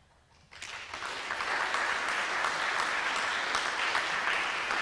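An audience applauding. The clapping starts about half a second in, swells over the next second and then holds steady.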